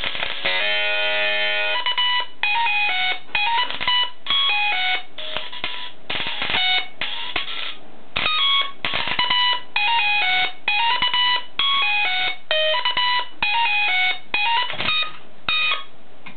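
Audio-modulated arc of a flyback-transformer plasma speaker playing a melody. The short, beeping notes come in quick runs, with the arc's steady hiss between them.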